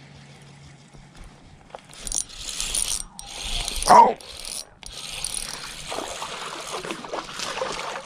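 Spinning reel being cranked, its gears whirring as line is wound in under the load of a hooked fish, starting about two seconds in. One brief, louder sound about halfway through.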